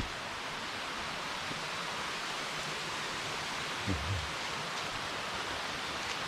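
Steady rush of flowing water, an even hiss with no rhythm. A short low thump about four seconds in.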